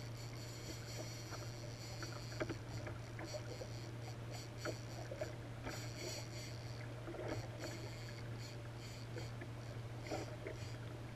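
Water lapping and splashing against a kayak hull, with scattered short knocks and clicks over a steady low hum.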